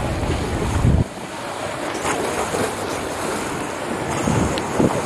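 Wind buffeting the microphone, with a heavy low rumble that cuts off about a second in, over harbour water lapping and splashing against the shore.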